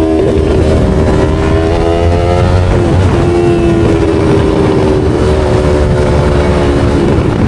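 Yamaha R3's 321 cc parallel-twin engine under way: the revs climb for about three seconds, drop sharply at a gear change, then hold fairly steady with a slight rise and a dip near the end.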